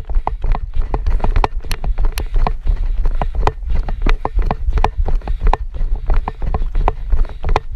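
Running footsteps on a dirt trail: quick, regular footfalls, heard through heavy wind and handling rumble on a hand-held camera carried by the runner.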